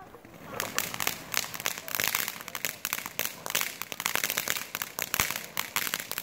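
Ground fountain firework spraying sparks: a dense, fast crackle that starts about half a second in.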